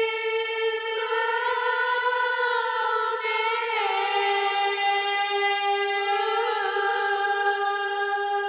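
Background music: slow sustained held chords that shift pitch about a second in and again near four seconds.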